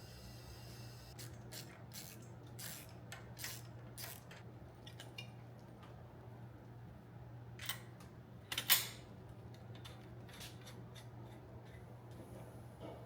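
A string of short, light metallic clicks and rattles from hand tools or small parts being handled, the loudest a quick pair just past the middle, over a steady low hum.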